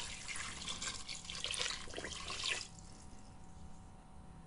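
Water poured from a measuring jug into a pressure cooker's inner pot full of vegetables and fish, splashing and trickling; the pour cuts off about two and a half seconds in.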